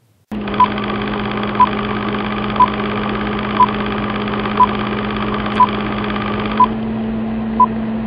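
Old film-countdown sound effect: a steady film-projector rattle with a short beep once a second as the leader counts down, eight beeps in all.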